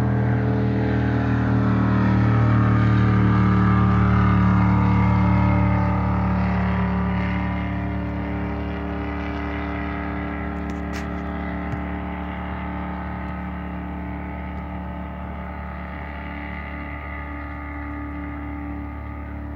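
Racing hydroplane's engine running flat out on the river below, a steady multi-toned engine drone. It cuts in suddenly, its pitch slides down over the first few seconds, and it eases off to a lower steady level for the rest.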